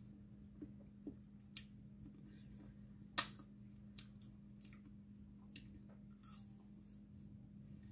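Teeth biting and crunching into a frozen watermelon ice pop, with wet mouth sounds: a handful of sharp cracks and clicks, the loudest about three seconds in, over a low steady hum.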